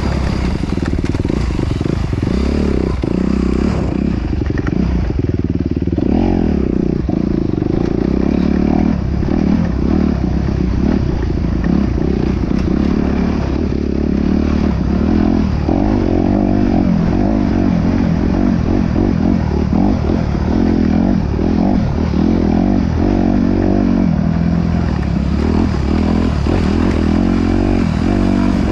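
Off-road vehicle engine running continuously, its pitch rising and falling with the throttle, with clattering from the ride over rough ground.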